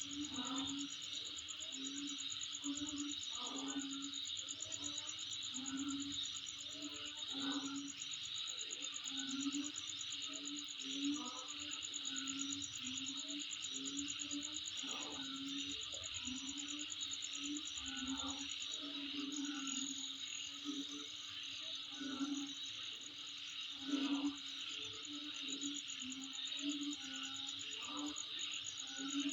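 Night insects calling in a steady chorus, a continuous fine high-pitched trilling. Under it, a lower short call repeats about twice a second.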